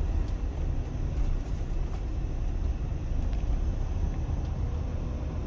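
Motorhome running, a steady low rumble of engine and rolling noise.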